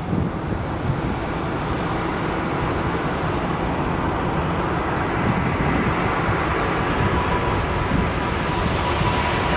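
Jet airliner engines on a landing approach: a steady noise that builds slightly, with a thin whine coming in near the end.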